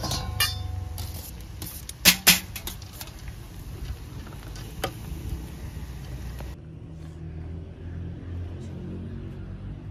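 Metal cooking utensils clanking against a pot: a knock with a short ringing tone at the start, a loud double knock about two seconds in, and a lighter one near five seconds. A steady low rumble runs underneath.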